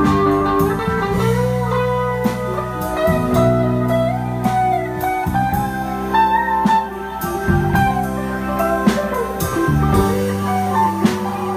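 Live band playing a slow soul-blues song: organ chords held under a guitar lead line with bending notes, and drums.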